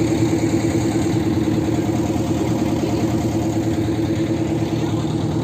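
Motorboat's engine running steadily with an even, unchanging drone.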